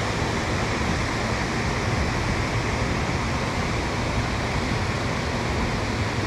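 Steady, even rush of water pouring down a dam wall, with a faint low drone under it.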